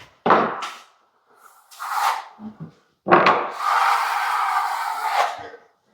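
Plastering trowel scraping across a drying skim coat on a ceiling: two short strokes, then one longer stroke of about two seconds. The scrape is a sign that the plaster has firmed up and is ready to be flattened off.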